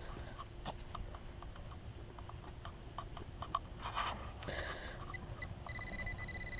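Gloved hand scraping and crumbling soil in a dug hole, with scattered small ticks and rustles. About five seconds in, a White's TRX pinpointer starts beeping, then holds a steady high tone: the sign of a metal target right there in the hole.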